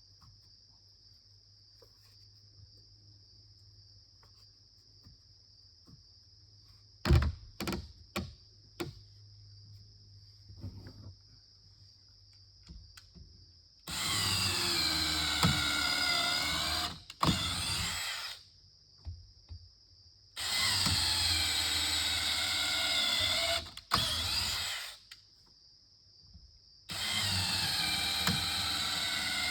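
A power drill running in three long bursts of a few seconds each, its motor pitch dropping as it bites under load, after a few knocks. A steady high insect buzz fills the quiet first part.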